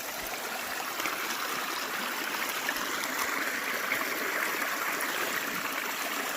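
Creek water running over rocks: a steady rushing that grows a little louder about halfway through.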